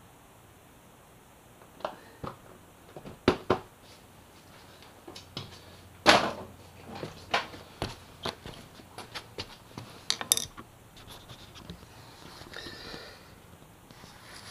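Irregular clicks and knocks of plastic motorcycle fairing panels and their fasteners being handled and fitted, with a louder clatter about six seconds in. A softer rustle of camera handling follows near the end.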